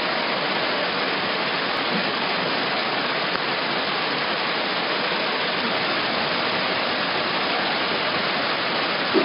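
Steady, even hiss of heavy rain and floodwater rushing along a street.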